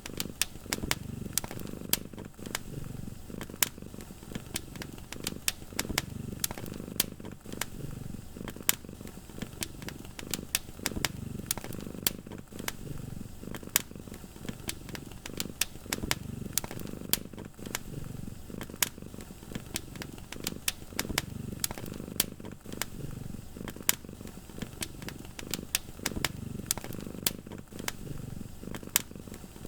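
A cat purring in a low rumble that swells and fades every two to three seconds, over a wood fire crackling with frequent sharp, irregular pops.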